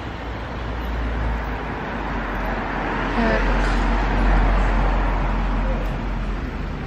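Street traffic: a road vehicle passing close, its noise and deep rumble swelling to a peak about four seconds in and then fading.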